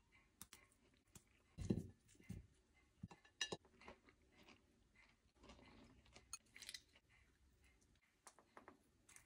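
Faint close-up sounds of salad ingredients being handled: a soft thump a little under two seconds in, then scattered sharp clicks and light crunches.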